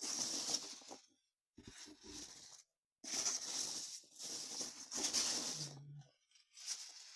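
Packing material rustling and crinkling as it is handled, in several bursts with short silent gaps between them.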